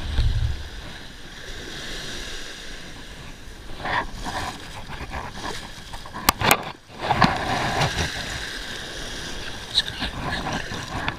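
Shallow ocean surf washing and splashing around the angler's legs, with wind buffeting the microphone. A low thump at the start, and two sharp knocks a little past halfway.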